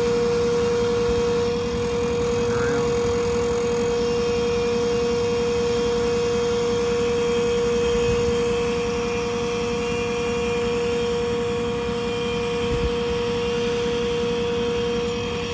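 Ford 6.7 Power Stroke diesel running steadily with the service crane's hydraulic system working: a constant high whine over the engine's low rumble.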